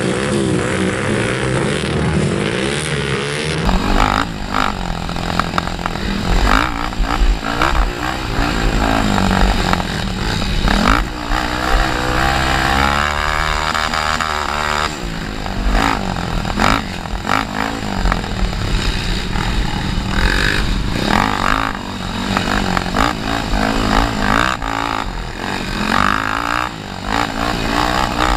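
Honda TRX300EX quad's single-cylinder four-stroke engine heard close up on board, its pitch rising and falling over and over as the throttle is worked, along with wind noise and frequent knocks and rattles from the rough trail. For the first few seconds, quads are heard running farther off.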